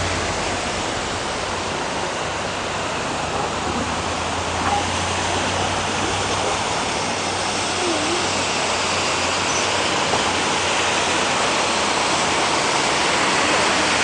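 Steady rushing of water on a flooded street, an even hiss with no breaks, with a faint low hum underneath for the first several seconds.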